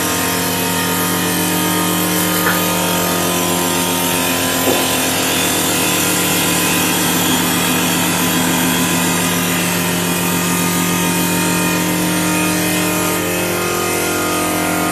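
CNC wood lathe running steadily, its motor humming under a constant hiss of the cutter working a wood bar. Two brief clicks sound in the first five seconds.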